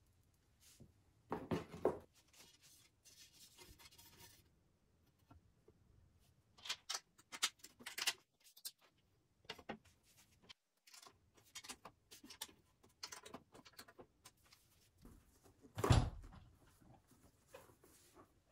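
Handling noises from metal scooter frame parts and wheels being moved and set down on a wooden floor: scattered knocks, clunks and rubbing, with one louder thump about 16 seconds in.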